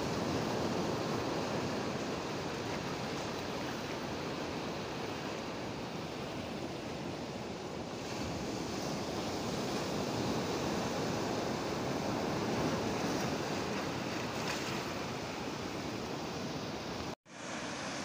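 Steady wash of sea surf on a rocky shore, cut off suddenly near the end.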